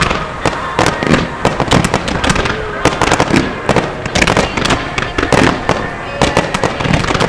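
Fireworks display in a fast barrage: rising comets and aerial shells banging and crackling, several reports a second overlapping.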